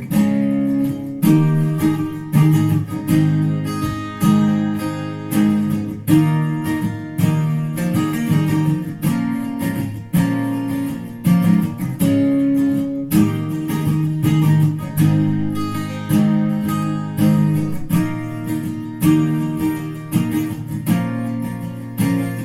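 Recorded acoustic guitar music with no vocals, chords strummed about once a second, played back through Kef R11 Meta loudspeakers driven by a Hegel H600 amplifier and picked up by a microphone in the room.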